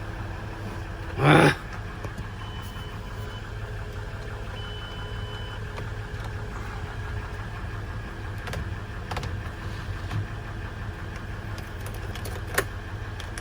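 A car engine idling steadily, a low even hum, as the donor car in a jump start charging a van's flat battery. A few faint clicks.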